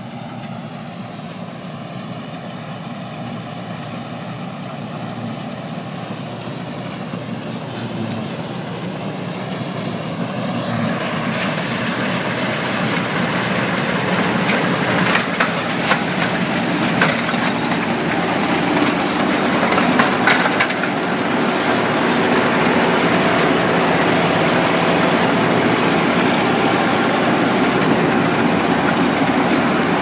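New Holland TC57 combine harvester running while it cuts soybeans, growing steadily louder and brighter as it comes right up close, with the steady clatter of its header. A few sharp cracks stand out in the middle stretch.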